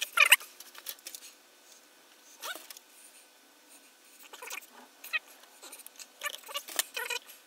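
A plastic model-kit sprue and metal modelling tools being picked up and handled on a cutting mat: a scattered series of short clicks, knocks and rattles, the loudest cluster right at the start.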